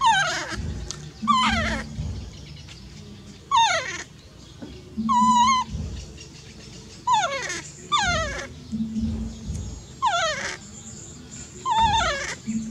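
Baby macaque crying: a run of about eight high-pitched, wailing cries a second or two apart, most sliding sharply down in pitch, one held level about halfway through.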